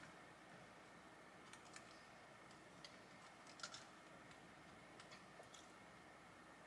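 Near silence with a few faint, scattered light clicks, about eight, from small miniature pieces being handled and set down.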